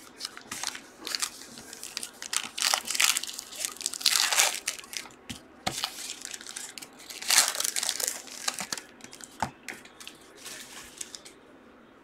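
Foil trading-card pack wrappers crinkling and tearing as the packs are opened and handled, in irregular bursts that die down near the end.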